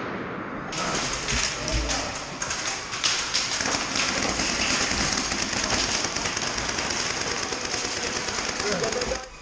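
Rapid, near-continuous airsoft gunfire, many shots a second, with players' voices shouting over it.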